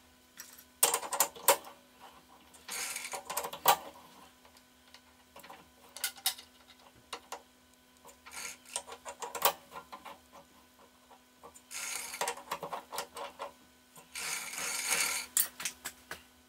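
Metal clicking and clattering in about six short, irregular bursts: an aluminium plate being set in a four-jaw lathe chuck, the jaws screwed in against it with the chuck key.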